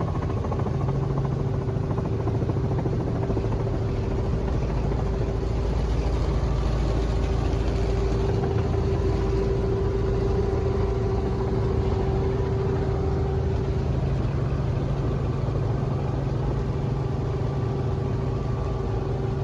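Steady drone of a helicopter's engine and rotors, a constant low rumble with an unchanging mid-pitched whine over it.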